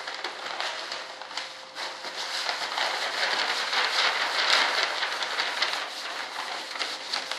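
Rolled paper plans rustling and crinkling as they are handled and carried, a dense crackle with many small clicks, loudest about halfway through.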